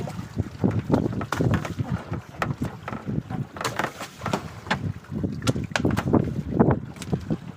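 Strong wind buffeting the microphone in irregular gusts.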